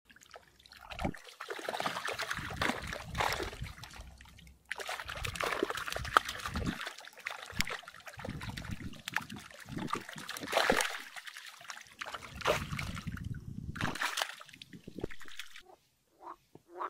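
Crucian carp flapping and splashing in a mesh keepnet held in shallow water, with water trickling and sloshing through the net, in uneven bursts with short pauses.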